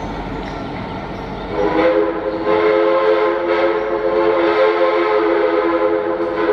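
An approaching train sounds a multi-note warning chime: several steady tones together, starting about a second and a half in and held to the end. It plays over the rumble of the train running on the rails.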